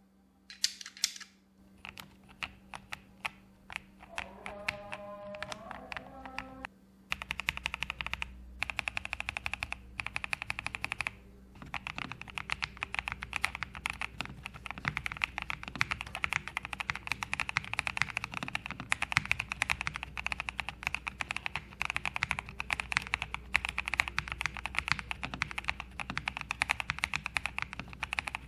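Pressplay Apollo61 v2 mechanical keyboard with lubed Gateron Brown tactile switches being typed on: a few scattered keypresses at first, then fast continuous typing from about seven seconds in.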